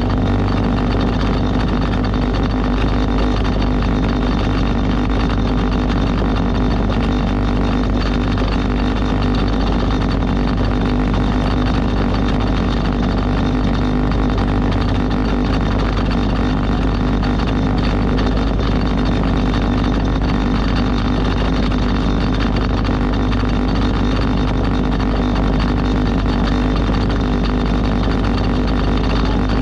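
Motorboat engine running steadily at constant speed, heard from on board, under an even rush of noise.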